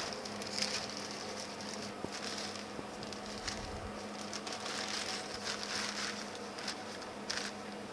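Thin plastic bag rustling and crinkling in short, scattered bursts as it is handled and fitted over a camera, over a faint steady hum.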